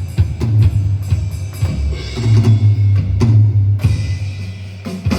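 Drums playing a beat: repeated sharp hits over a held low note.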